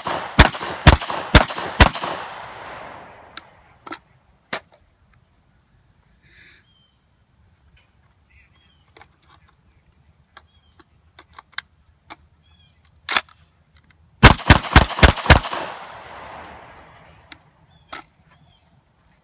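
Catamount Fury 12-gauge semi-automatic shotgun (a Saiga 12 clone) fired rapidly: a string of about five shots roughly half a second apart, echoing away. Then come faint clicks of magazine handling. Near the end there is a single shot and a second quick string of about five.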